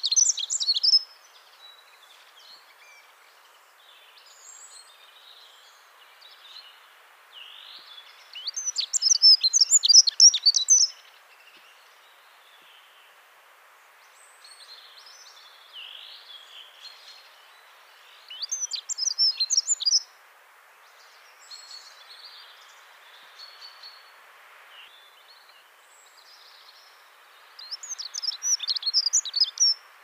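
Dunnock singing: four short, fast, high warbling song phrases of about two to three seconds each, repeated every eight to ten seconds, with softer chirps in between over a faint steady hiss.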